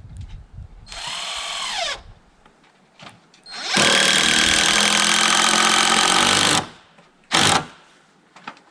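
Power drill running in three bursts: a short run about a second in that winds down with falling pitch, a steady run of about three seconds, and a brief blip near the end, typical of driving screws into the timber frame.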